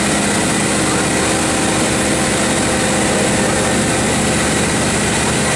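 Komatsu PC4000 mining excavator running, a loud steady machine drone with a constant pitched hum.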